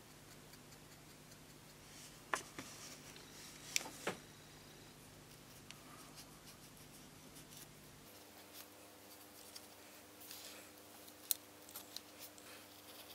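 Faint scratching of a cotton swab rubbing a small metal lighter part, with a few sharp light clicks and taps as the small metal parts are handled.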